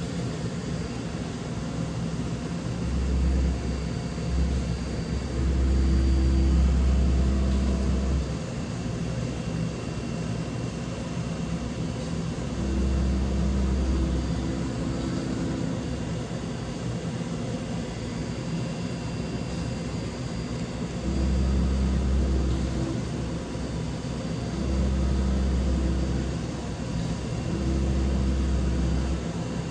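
DVF 5000 five-axis CNC machining centre running a program, a steady machine drone with a low hum that swells for one to three seconds at a time, every few seconds.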